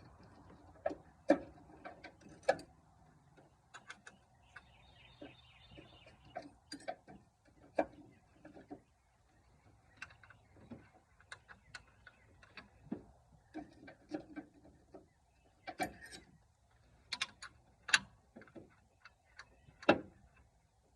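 Hand tools working on a pickup truck's alternator mounting: irregular metal clicks and knocks, with a socket ratchet clicking in a quick run about five seconds in.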